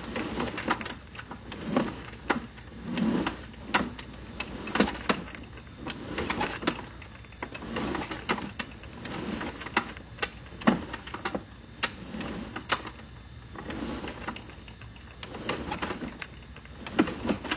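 Sewer inspection camera's push cable being pulled back out through a drain pipe, with irregular clicks and knocks about once or twice a second over a low rumble.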